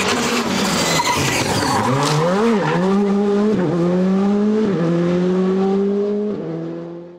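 Rally car engine accelerating hard through the gears, its pitch climbing and dropping back at each of about four upshifts. The sound fades away near the end and then stops.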